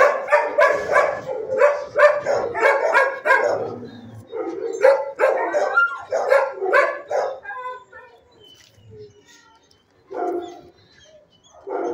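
Dogs barking in a shelter kennel: a fast run of barks for about seven seconds, then two short bursts of barking near the end.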